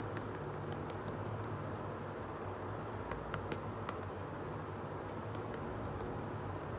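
Light scattered clicks and taps of a small hard-plastic toy piece being handled and turned over in the hands, a cluster about halfway through and more near the end, over a steady low hum and hiss.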